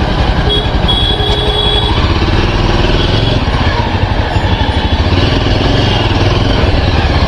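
Motorcycle engine running steadily, with an even low rumble of firing pulses.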